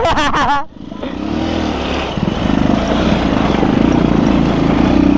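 Motorcycle engine pulling away about a second in and then running on at a steady pace, under a steady rushing noise of wind and road.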